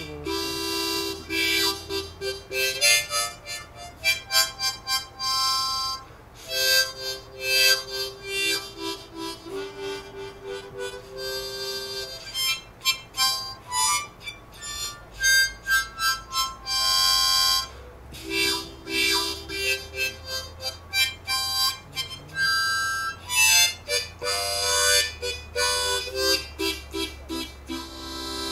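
Background music: a melody of held notes that change in steps, playing steadily throughout.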